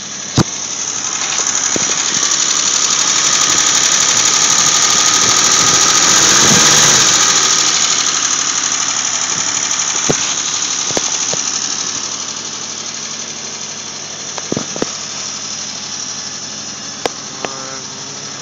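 1973 Dodge Dart's slant-six engine running, newly brought back to life, with a steady hum under a broad hiss. It grows louder over the first seven seconds or so, then settles back, with a few sharp clicks along the way.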